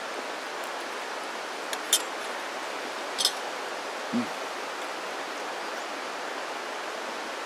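Two sharp metallic clinks of a metal fork against a stainless steel camp pot, about two and three seconds in, over a steady rushing background noise, with a brief low hum from the eater a second later.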